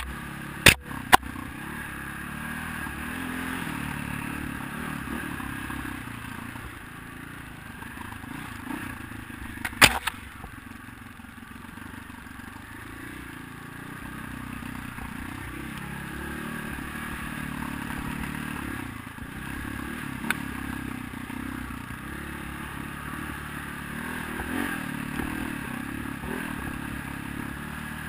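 KTM 520 MXC dirt bike's single-cylinder four-stroke engine running under way on a dirt trail, its note rising and falling with the throttle, heard from a camera mounted on the bike. Two sharp knocks come near the start and another about ten seconds in.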